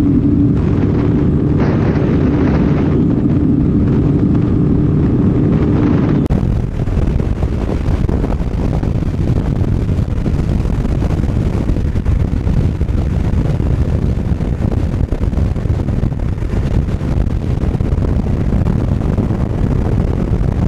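Off-road motorcycle engine running at a steady pitch. About six seconds in, the sound changes abruptly to a loud, even rush of wind over the microphone mixed with engine noise.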